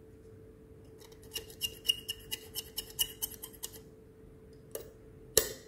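A thin metal tool scraping at the burnt copper contact plate of an electric kettle's base connector: a quick run of about a dozen short strokes. Two sharp clicks follow near the end, the second louder.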